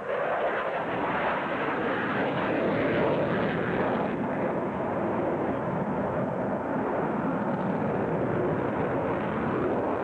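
Grumman F-14 Tomcat's twin jet engines in a low, banking display pass: loud, steady jet noise, slightly duller after about four seconds.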